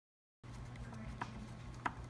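Dead silence that cuts to a steady low hum of room noise, with two light clicks of small parts being handled, the second about two-thirds of the way in.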